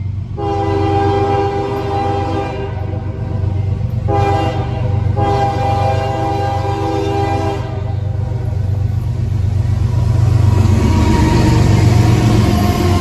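A CSX diesel freight locomotive sounds its multi-chime air horn: a long blast, a short one, then a final long blast. The heavy engine rumble and the noise of steel wheels on rail then build as the lead locomotive and train pass close by, and are loudest near the end.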